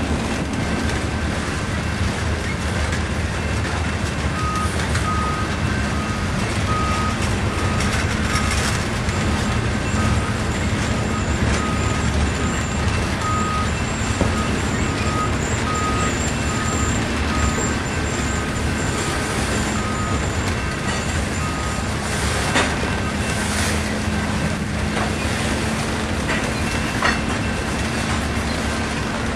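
CSX freight train's covered hopper cars rolling past at speed: a steady rumble and rattle of steel wheels on rail. A high tone sounds on and off through the middle, and a few sharp clacks come near the end.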